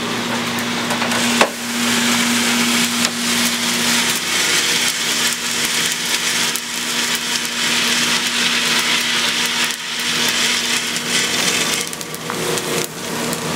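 Freshly roasted coffee beans dropping out of a Probat drum roaster into its cooling tray, rattling and crackling as the stirring arms sweep through them, with a sharp clack about a second and a half in. A steady machine hum fades out about four seconds in.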